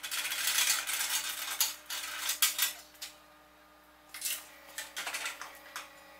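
Loose metal parts clinking and rattling against each other. The clinking is busy for the first two and a half seconds, then turns into a few scattered clinks over a faint steady hum.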